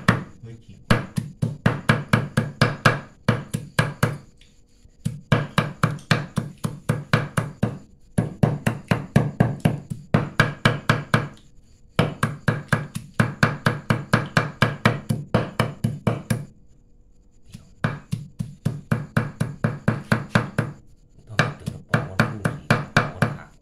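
Cleaver mincing buffalo meat on a thick wooden chopping block, in fast runs of about four or five chops a second broken by pauses of about a second.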